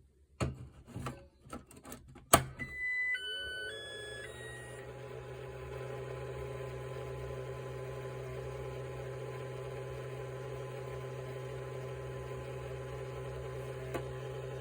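Makita DC18RC battery charger switching on: a few handling clicks and a sharp click, then its short beeping start-up melody, then a steady buzzing hum that runs on. The hum is the odd noise the charger has started making.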